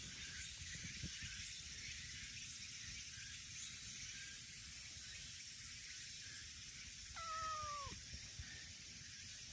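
A brown tabby cat gives one short meow about seven seconds in, held level and dropping at the end.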